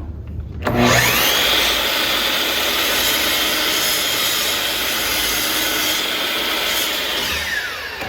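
Table saw starting up about a second in, then running with a steady high whine while ripping cherry stock. Near the end it winds down, its pitch falling.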